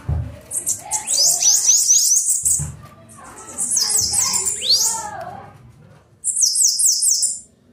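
Bananaquit singing: three bouts of its high, buzzy song, each a fast run of sharply falling notes, about half a second in, around three seconds, and again near the end.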